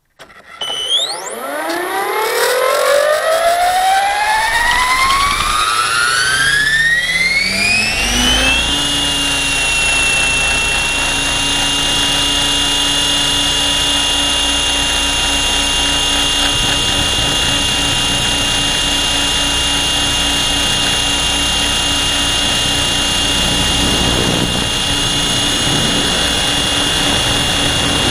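Align T-Rex 700 radio-controlled helicopter spooling up: a whine rises steadily in pitch for about eight seconds as the rotor comes up to speed, then holds one steady high whine in flight. It is heard from a camera mounted on the helicopter.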